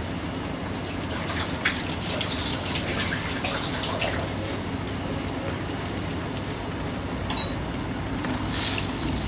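Broth of a chicken and oyster-mushroom curry in a steel pot, bubbling and popping in irregular crackles over a steady low hum; a sharp click about seven seconds in.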